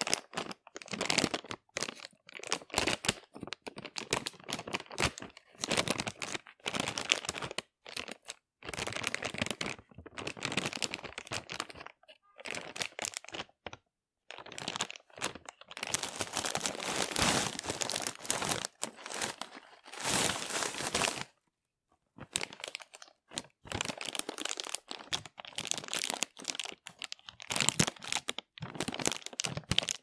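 Plastic being crumpled and crinkled in a run of short bursts with brief pauses between them, and a longer unbroken stretch of crinkling a little past the middle.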